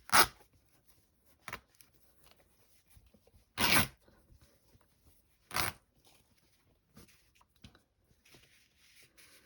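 Linen fabric being torn by hand in a few short rips, the strongest just after the start and at about four and six seconds in, with light rustling of the cloth between them.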